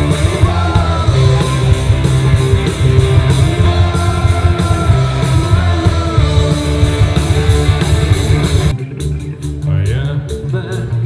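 Live rock band playing: electric guitars, bass, drum kit and singing. About nine seconds in, the full band drops out and the sound becomes thinner and quieter.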